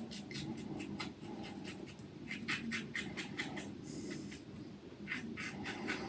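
Yaqi Slope 316 stainless steel slant safety razor with a Wizamet Super Iridium blade scraping through three-day stubble on the upper lip during the third pass, in short, rapid strokes that come in bursts with a brief pause past the middle.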